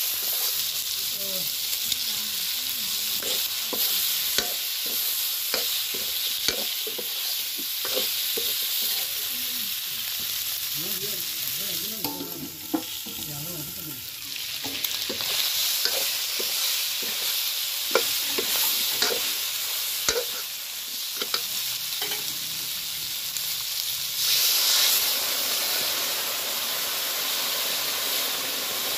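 Eel pieces frying and sizzling steadily in a wide iron wok, with a metal ladle stirring and scraping against the pan in sharp clicks. About 24 s in, the hissing jumps louder as water is poured into the hot wok.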